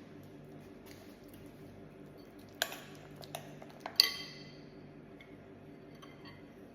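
A spoon clinking against a dish: one sharp clink about two and a half seconds in, a couple of light taps, then a louder clink about four seconds in that rings briefly.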